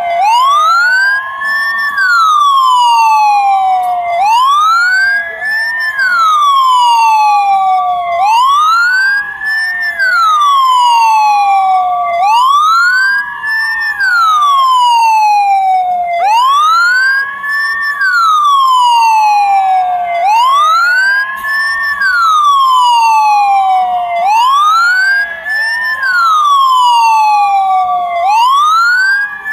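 Ambulance siren sounding a continuous wail: each cycle climbs quickly in pitch, then falls away more slowly, repeating about every four seconds.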